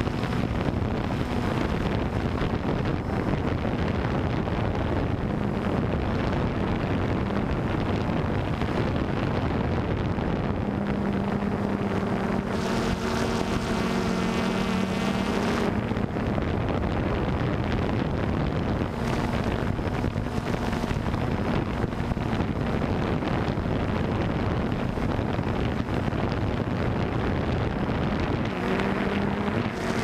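Drone motors and propellers buzzing steadily, with wind rushing over the microphone; the hum shifts in pitch and grows stronger for a few seconds around the middle.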